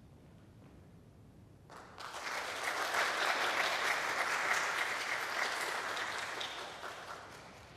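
Audience applauding after a performance: the clapping starts about two seconds in, swells quickly, holds, then fades away near the end.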